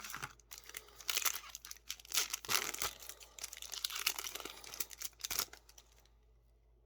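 Foil Yu-Gi-Oh booster pack wrapper crinkling and tearing as it is opened by hand, a dense crackle for about five seconds that then stops.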